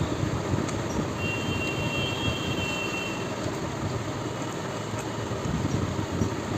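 Close-miked eating sounds: continuous chewing and mouth noises while eating rice with rajma.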